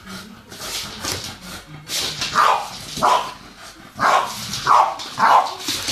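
A dog barking: a run of about five short barks starting about two seconds in.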